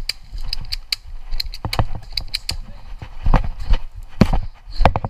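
Footsteps crunching quickly through dry leaf litter, with irregular knocks and bumps from the handheld camera as the player moves, the heaviest thuds in the second half.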